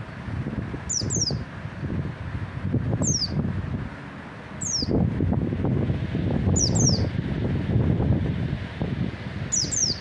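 White-eye (pleci) giving short, high, downward-slurred chirps, some single and some in quick pairs, about every two seconds.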